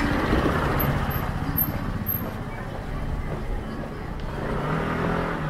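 Street traffic: a motor vehicle running close by, with a steady dense noise that swells again near the end.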